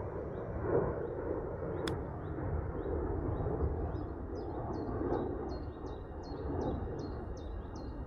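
Wind rumbling on the microphone in open outdoor air, with a bird chirping over and over in a regular series about one and a half times a second, the chirps getting louder in the second half.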